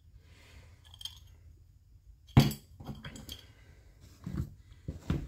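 Scattered light metal clinks and knocks as the parts of a disassembled chainsaw are handled on a workbench, with one sharp knock about two and a half seconds in.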